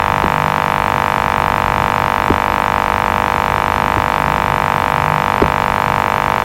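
A steady, unchanging buzzing tone with many overtones, with a few faint clicks over it.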